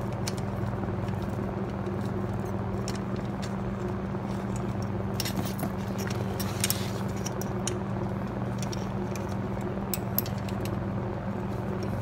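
A steady low hum, with scattered small metallic clicks and taps from a wrench working the bicycle saddle's clamp bolts. A few louder clicks come about five and six and a half seconds in.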